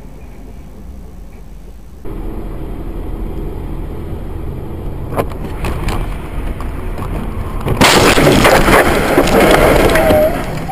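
Car driving noise picked up by a dash cam, with sharp knocks about five and six seconds in. From about eight seconds it turns into a much louder rushing noise.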